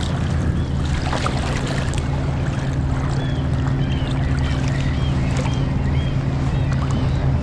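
Footsteps wading through shallow seawater in rubber waders, with scattered splashes, over a steady low mechanical hum that is the loudest sound throughout.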